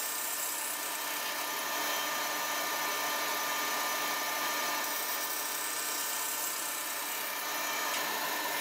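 Bandsaw with a 1/2-inch, 18-teeth-per-inch blade ripping thin strips from a zebrawood board. It runs as a steady, high-pitched whine and cuts off abruptly at the end.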